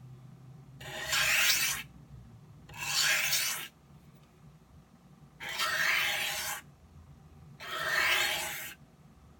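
A knife blade drawn across a large oiled Norton bench stone in four even sharpening strokes, each a scraping hiss about a second long, about two seconds apart.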